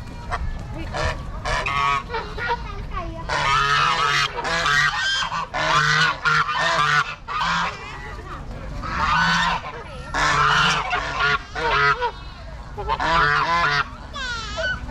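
Farm animals calling loudly, several voices overlapping in repeated bursts, with a short lull about eight seconds in.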